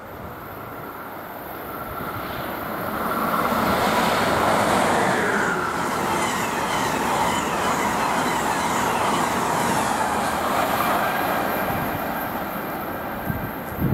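A train going by close at hand. The rail noise builds over a couple of seconds, stays loud for about seven seconds with a whine that falls in pitch, then eases off near the end.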